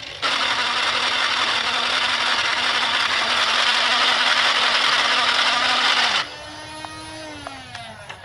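A small electric motor runs with a loud, even rushing noise over it that cuts off suddenly about six seconds in. The motor's hum carries on and falls in pitch as it winds down near the end.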